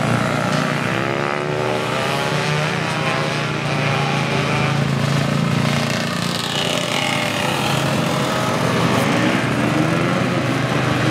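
Two-stroke Yamaha F1ZR underbone race bikes running hard, their engine pitch sweeping up and down repeatedly as they accelerate, back off and pass.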